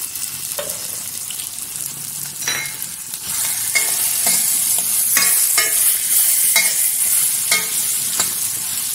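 Cubed yellow pumpkin sautéing in hot oil in a metal kadai: a steady sizzle. From about three seconds in, a metal spoon stirring scrapes and clinks against the pan about twice a second.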